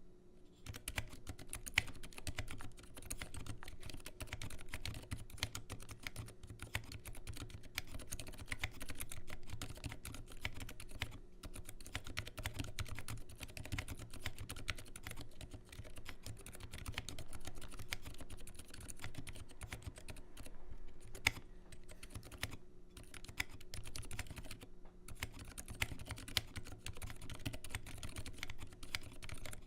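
Fast, continuous typing on a custom 27-key mechanical keyboard with Gateron Silent Black switches, DSA keycaps and an acrylic sandwich case. It starts about a second in, with a few brief pauses along the way.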